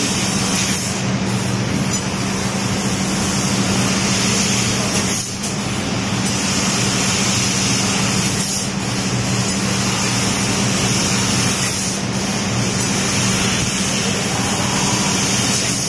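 Fiber laser cutting machine cutting sheet steel: a steady hiss of cutting gas over a steady low hum, dipping briefly a few times.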